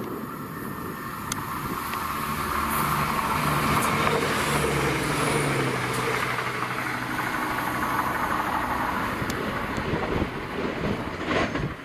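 A vehicle passing close by: a steady rushing noise with a low engine note that builds over the first couple of seconds, holds, and fades near the end.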